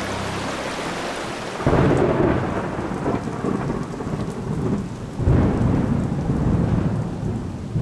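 Two claps of thunder, the first about a second and a half in and the second about five seconds in, each rumbling away over a few seconds, over steady rain.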